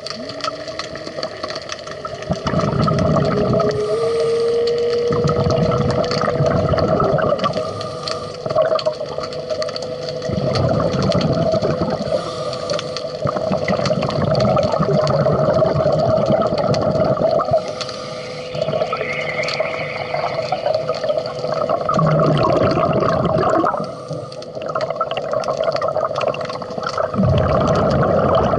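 Underwater sound of a diver's scuba exhaust bubbles gurgling out in surges every few seconds, over a steady hum that rises in pitch during the first few seconds and then holds.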